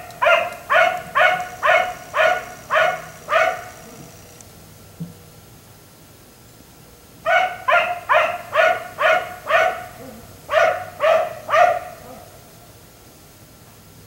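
Black Labrador barking in runs of steady, evenly spaced barks, about two a second. Three runs of several barks each are broken by pauses of a few seconds.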